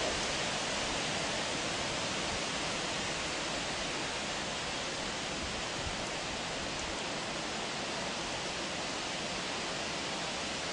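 Steady, even hiss of outdoor background noise with no separate events.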